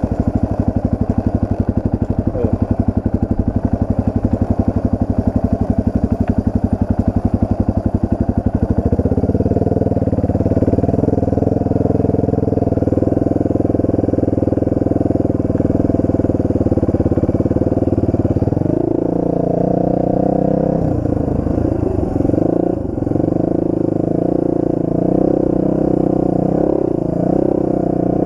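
Enduro dirt bike engine chugging at low revs for about nine seconds, then running faster and steadier, with its pitch rising and falling as the throttle changes in the last third.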